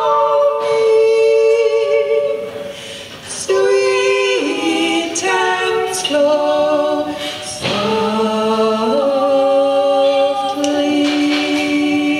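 Two women singing a folk song a cappella in two-part harmony, drawing out long held notes on the song's final phrase, with short breaths between phrases.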